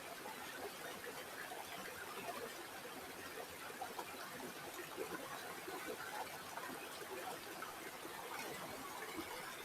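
River water flowing: a steady, faint babble of many small gurgles and splashes.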